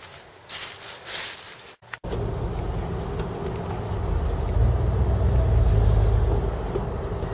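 A pickup truck driving: steady low engine and road rumble that swells louder about halfway through, following a brief stretch of rustling that cuts off about two seconds in.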